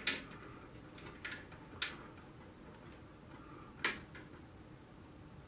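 Four short, sharp clicks and knocks from a drill press table being lowered, the loudest nearly four seconds in.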